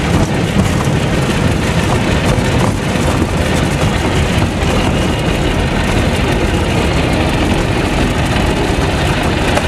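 Piper Cub's piston engine and propeller running steadily, heard loud from inside the small cabin while the aircraft is on a grass airfield.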